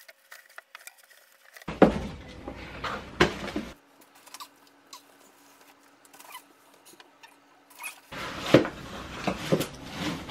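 Unpacking noises: a Cybex Gazelle S stroller's parts being handled in their cardboard box and plastic wrapping, with scattered clicks, rustles and knocks. They bunch up about two seconds in and again near the end, with a quieter stretch between.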